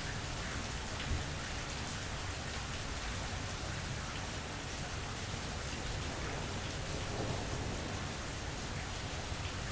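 Steady rain from a mild thunderstorm, with scattered drops ticking and a low rumble underneath.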